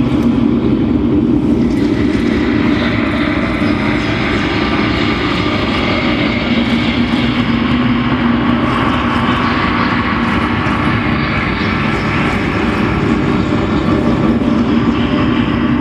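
Experimental electronic drone score: a loud, steady, dense noise texture with a strong low hum, its upper hiss growing brighter about two seconds in.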